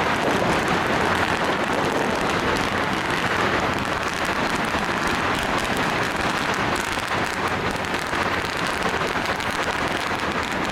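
Strings of firecrackers going off in a dense, continuous crackle.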